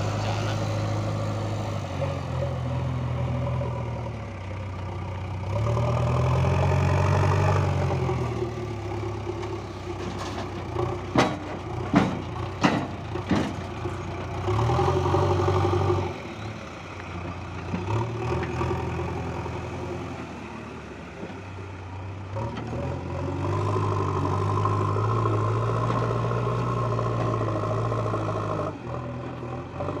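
JCB 3DX backhoe loader's diesel engine running and revving up and down as the machine works. Near the middle comes a cluster of sharp knocks as the front bucket empties its load of soil into the tipper truck.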